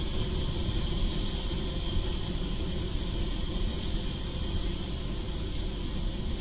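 Steady outdoor ambience from a trackside railroad webcam's microphone at an empty grade crossing: a rough low rumble and hiss with a steady high-pitched hum above it, carried through the live-stream feed.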